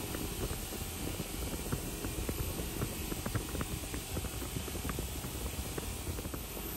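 Bench-mounted wire wheel spinning against a pipe wrench's knurled steel adjusting nut, scrubbing off rust. It makes a steady rumbling rush with scattered ticks of wire striking the metal.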